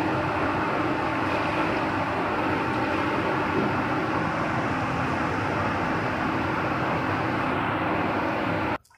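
Steady roar of a commercial gas stove burner firing under a stockpot, with a faint steady hum in it; it cuts off suddenly near the end.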